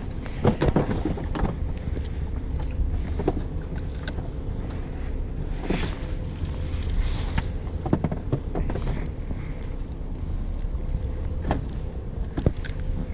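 Charter fishing boat's engine running with a steady low drone, overlaid by scattered sharp clicks and knocks, several of them in the first second or so.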